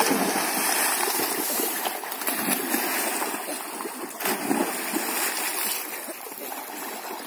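Water splashing in a pond as boys jump in and swim, loudest in the first couple of seconds and easing off near the end.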